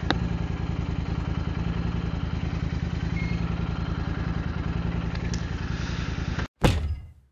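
Royal Enfield Interceptor 650's parallel-twin engine idling steadily with an even, rapid low thrum. It cuts off abruptly about six and a half seconds in, followed by a short burst of noise.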